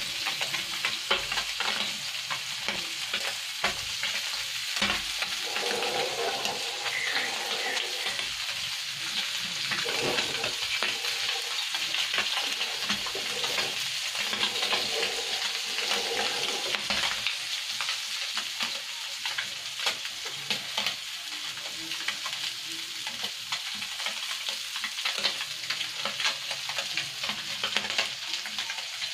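Small puti fish deep-frying in a pan of hot oil: a steady sizzle with dense, continuous crackling.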